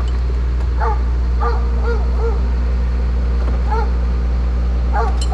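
Leashed dog barking in short, high, whiny yips, about six of them spread over a few seconds, fretting at being tied up. Under it runs a steady low engine hum.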